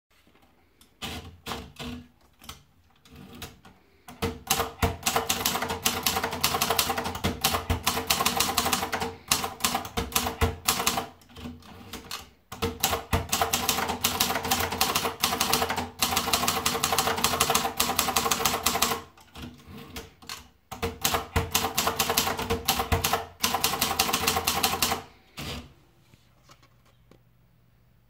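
Torpedo 10/50 portable manual typewriter. For the first few seconds a few scattered clicks are heard as the paper is wound in. Then it is typed on in long, fast runs of sharp key strikes, with short pauses and two quieter stretches between the lines. It stops about 26 seconds in.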